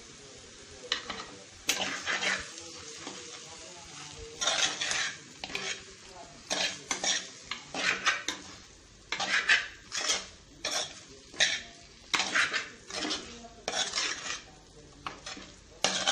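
A spoon stirring chunks of masala-coated chicken around an earthen clay pot, scraping against the pot in repeated rasping strokes that come quicker and more regularly from about four seconds in.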